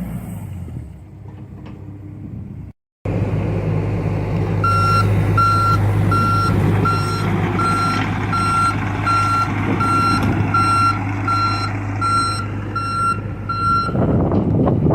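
Heavy diesel machine running steadily with its backup alarm beeping, about one beep every three-quarters of a second, starting about four and a half seconds in. The beeping stops near the end as the machine noise grows louder and rougher. Earlier, an engine winds down and the sound drops out briefly just before three seconds.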